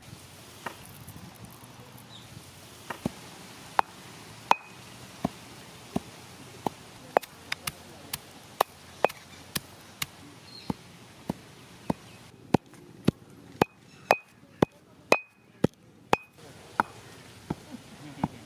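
Heavy stone pestle pounding seeds in a stone mortar, sharp knocks at a steady rhythm of about one and a half strokes a second, some with a brief ringing click of stone on stone.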